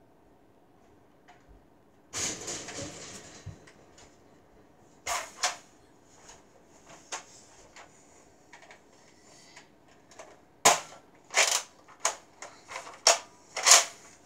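Nerf blaster being handled off-camera: a scraping rustle about two seconds in, then scattered plastic clicks, and a quick run of loud, sharp plastic clacks near the end.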